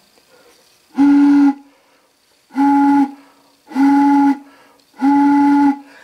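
Homemade whistle made from 1½-inch PVC pipe about a foot long, blown by mouth in four short blasts. Each blast is a steady low hoot with a breathy rush of air.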